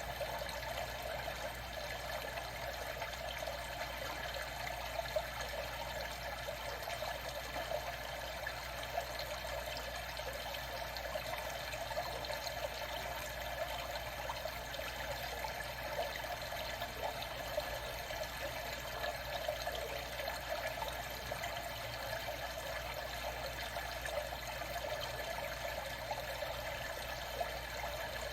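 Steady sound of moving water, even and unbroken, with no sudden splashes.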